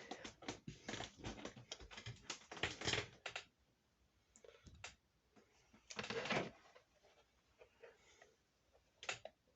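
A quick run of clicks and taps for about three and a half seconds, then a few scattered knocks with quiet gaps between.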